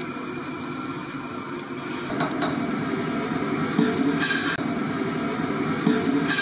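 An aluminium cooking pot lifted off the iron grate of a gas stove: a few knocks and scrapes of metal on metal from about two seconds in, over a steady rushing noise.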